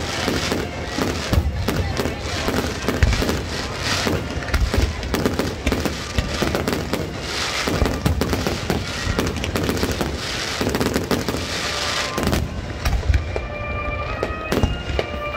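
Fireworks display: a dense, continuous barrage of launch thumps, shell bursts and crackle.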